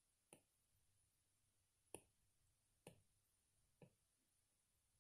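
Faint, sharp taps of an Apple Pencil's plastic tip on the iPad's glass screen: four single taps spaced roughly a second apart, with another at the very end.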